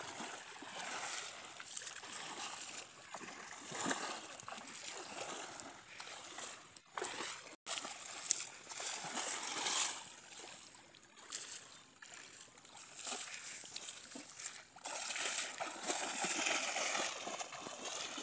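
Water splashing and sloshing, uneven and continuous, as men wade and thrash through a shallow pond hauling a fishing net.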